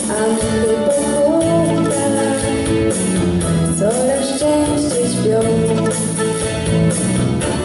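A girl singing a slow melody into a microphone, holding long notes with small slides between them, over instrumental accompaniment.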